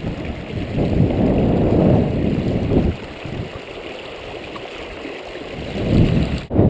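Shallow mountain stream rippling and gurgling over stones close to the microphone, louder for the first few seconds, then softer.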